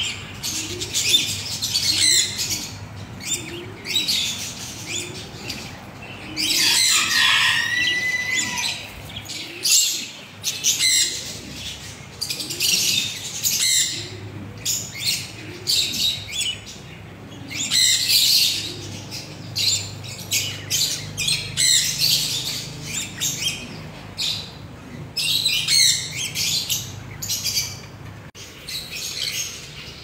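Budgerigars warbling and chattering in repeated high-pitched bursts of a second or two, broken by short squawks, with one longer falling call about seven seconds in.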